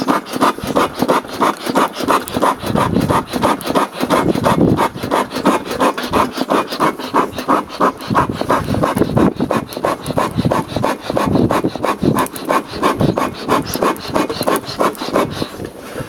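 A flat metal tray fanned hard over a charcoal fire, making rapid whooshing strokes about three a second, which force air into the coals to make them burn hotter.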